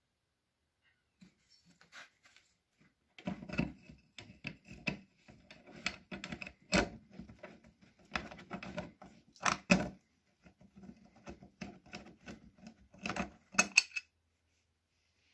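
Irregular metal clinks, taps and rattles of a steel steering-neck bracket and its bolts being worked loose by hand from the side of a plastic cooler scooter body, with a few sharper knocks, the loudest near the end.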